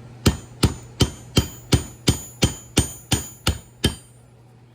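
A hammer driving a thinned-down wood chisel into a small transformer to split it open: eleven quick, ringing metallic strikes, about three a second, that stop near the end.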